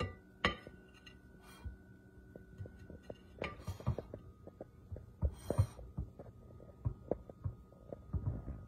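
Soft, irregular taps and low thuds with a couple of brief scraping swishes, from a metal icing spatula spreading thick cream cheese icing over a cake layer on a glass cake plate. A faint steady hum lies underneath.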